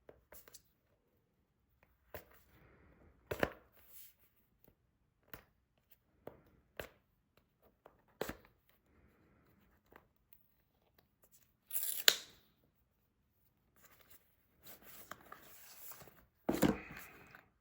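Apple Pencil Pro box being unsealed and opened: a paper seal tearing among scattered taps and rustles of cardboard packaging, with a louder tear or rustle about two-thirds of the way through and again near the end.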